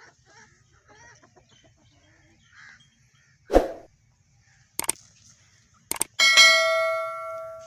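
Faint chicken clucking, then a dull thump about three and a half seconds in and two sharp clicks. Near the end a metal object is struck once and rings out with a clear clang that fades over about a second and a half.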